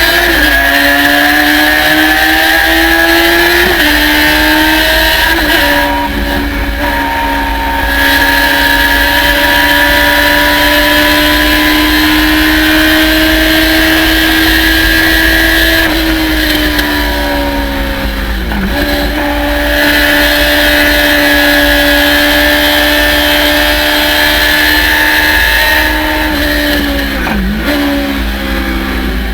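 Race car engine at high revs, its pitch climbing slowly on the straights and dropping at each gear change. It dips sharply twice, around two-thirds of the way in and again near the end, as the car brakes and shifts down, then picks up again.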